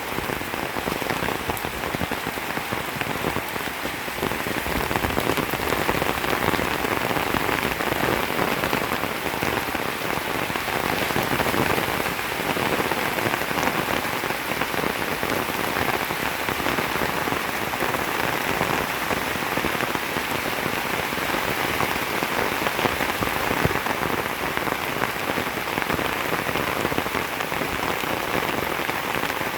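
Steady rain falling: a dense, even hiss of countless drops, with no let-up.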